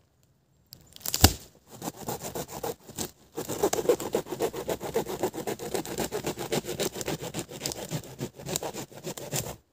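A thump about a second in, then a hand saw rasping through a fallen wooden pole in steady back-and-forth strokes.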